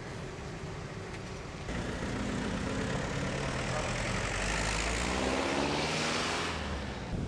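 Motor vehicle engine passing close by, its pitch climbing as it speeds up from about two seconds in, with a rush of noise that fades out near the end.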